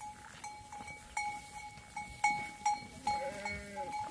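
A sheep's bell clanking at uneven intervals, two or three strikes a second, as the flock moves and grazes. About three seconds in, a sheep bleats once.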